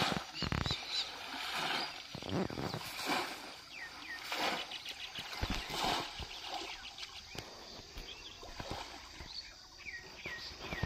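Outdoor pond ambience: birds chirping now and then over irregular water splashing from a person wading and groping through shallow water.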